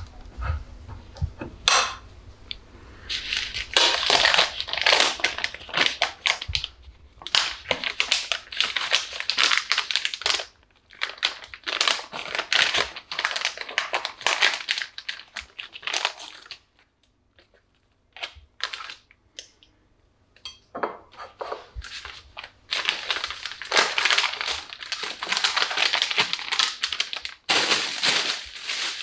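Plastic packaging of a pack of sliced cheese crinkling and rustling as it is torn open and handled. The crackling comes in several long stretches, with a near-silent gap of a few seconds just past the middle.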